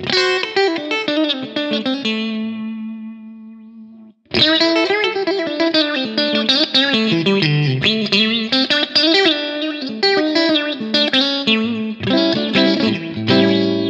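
Clean electric guitar played through an All Pedal Macrodose envelope filter pedal, each picked note getting an auto-wah sweep, with the resonance control bringing out a stronger peak in the wah. A short phrase rings out and fades, then after a brief break, busier funky picking with the filter sweeping on every note.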